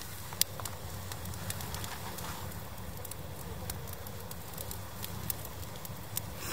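Small fire of dry twigs crackling in a metal drum as the kindling catches and flares up, with scattered sharp pops, the loudest about half a second in.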